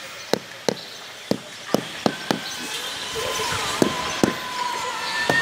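A mallet knocking a concrete floor tile down into its mortar bed to seat it: a series of sharp taps, several in quick pairs, with a pause about halfway through. A faint steady tone comes in behind them about three seconds in.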